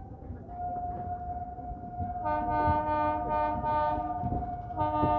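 Indian Railways train horn sounding over the low rumble of the moving train. A single steady note holds, then the full multi-note horn chord blasts twice: about halfway through for roughly two seconds, and again near the end.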